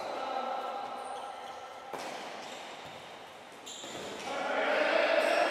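Futsal ball being kicked and bouncing on an indoor hall court, a few sharp knocks, with players' shouts rising and getting louder near the end.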